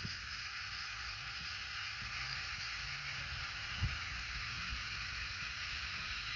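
Steady high hiss of outdoor background noise, with a few soft low thumps.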